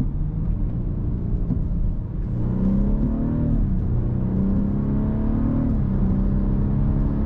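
BMW F30 328i's 2.0-litre turbocharged four-cylinder engine running. Its note rises about two and a half seconds in, falls back a second later, then holds steady.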